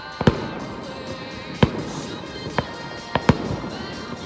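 Fireworks exploding in a display: five sharp bangs, the last two in quick succession near the end, over background music.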